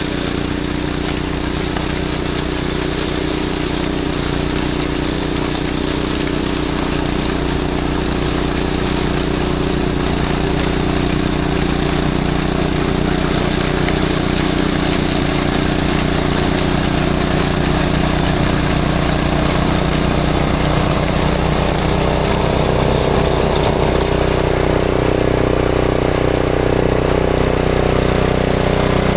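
Snowblower's gasoline engine running steadily while clearing snow; its note changes about three-quarters of the way through.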